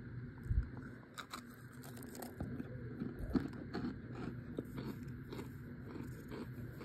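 Someone biting and chewing chunks of dried cornstarch: a run of dry crunches, loudest about half a second in and again a little past three seconds.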